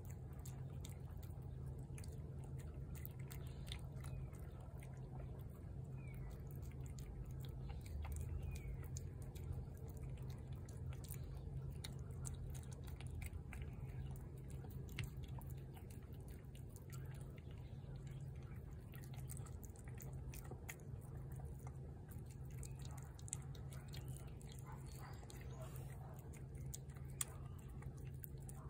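A feral cat chewing and smacking on soft food, heard as many faint, irregular wet clicks, over a steady low hum.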